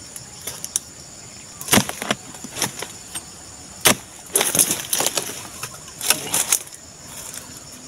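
Harvesting chisel chopping at the stalk of an oil palm fruit bunch on a young palm: single sharp chops about two and four seconds in, then quicker runs of crackling strikes and frond rustle as the bunch is cut loose.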